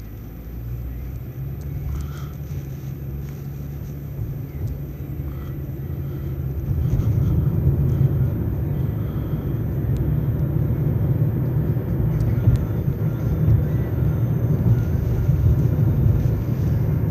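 Low, steady rumble of a car driving, engine and road noise heard from inside the cabin, growing louder about six and a half seconds in.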